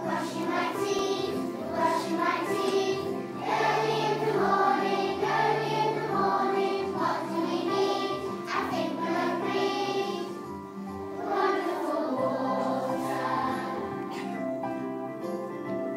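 A group of young children singing a song together in unison, over an instrumental backing.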